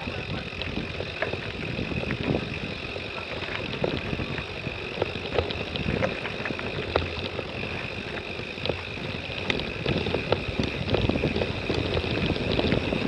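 Mountain bike rolling fast down a rough gravel and dirt trail: tyres crunching over loose stones, with frequent sharp knocks and rattles from the frame and chain as it hits rocks and ruts.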